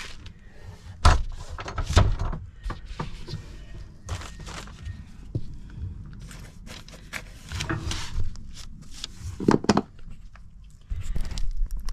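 Scattered thumps and knocks in a small room, from someone handling tools and moving about on the floor while painting it. The sharpest knocks come about a second and two seconds in and again around nine and a half seconds, with lighter rustling and tapping between.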